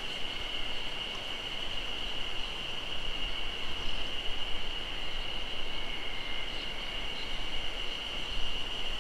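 A chorus of insects in the forest keeping up a steady high-pitched drone, with a second, slightly lower tone joining about six seconds in, over a low, even rushing noise.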